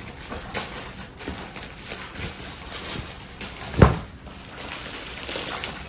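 A length of printed cashmilon suit fabric flung open and dropped onto an artificial-grass mat: a single soft thump a little under four seconds in, with faint rustling of cloth being handled around it.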